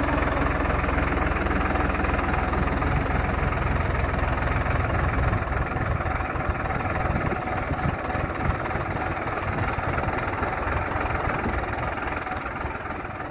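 Diesel tractor engine running steadily while it pulls a tine cultivator through the soil.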